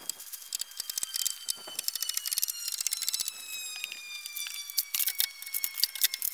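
Woven plastic house wrap crackling and rustling in quick irregular clicks as it is pulled and handled against the wall framing. A faint high tone glides slowly down in pitch behind it.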